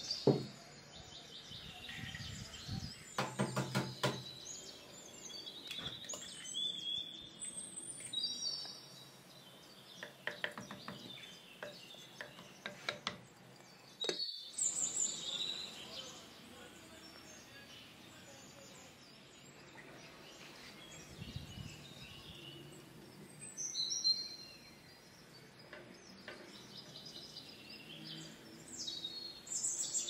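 Small birds chirping and twittering throughout, with scattered short clinks and knocks of cookware being handled, among them a clay lid set on a glazed clay pot about halfway through.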